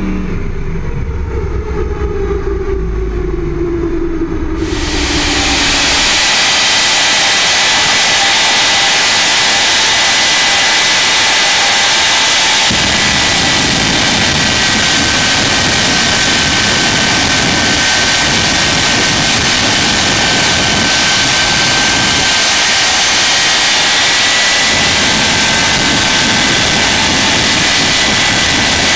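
Two jet dragsters' turbine engines running side by side with afterburners lit: a loud, steady roar with a high turbine whine. For the first four and a half seconds, before the jets come in suddenly, a drag car's engine is heard from onboard with its pitch falling.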